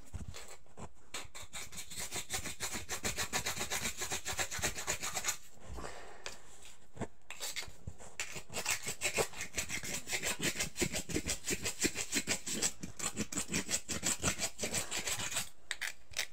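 A metal file rasping on cuttlefish bone in rapid back-and-forth strokes, about four a second, with a couple of short pauses: the bone is being grated into calcium powder.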